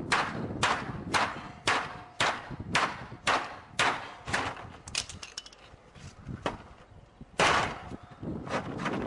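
A garage door being struck over and over as a break-in test, about two blows a second for the first four seconds. The blows then come fewer and fainter, with one loudest blow a little past seven seconds and another near the end.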